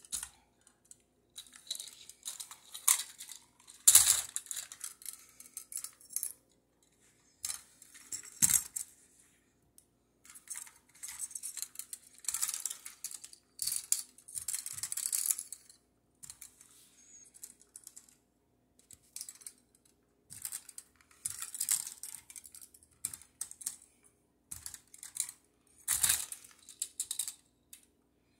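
Plastic Lego bricks clicking and clattering as a Lego train model is grabbed, pulled apart and its pieces dropped, in irregular bursts with short pauses. A few louder knocks come about 4 s, 8 s and 26 s in.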